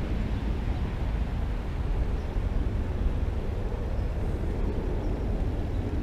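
Steady low outdoor rumble with a light hiss and no distinct events, with a couple of faint clicks near the end.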